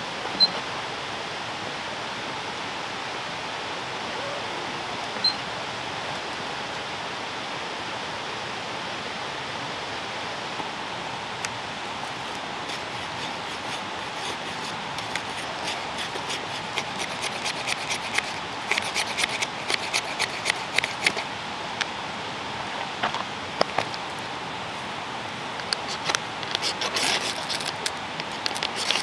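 Steady rushing of running water throughout. A knock comes about half a second in and another about five seconds in. From about twelve seconds to twenty-one, and again near the end, a knife scrapes wood in quick repeated strokes, shaving off curls for fire-lighting tinder.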